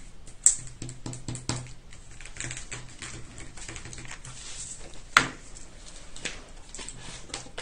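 Irregular light taps, clicks and rustles of small paper pieces and craft tools being handled on a table, with two sharper clicks, one about half a second in and one about five seconds in.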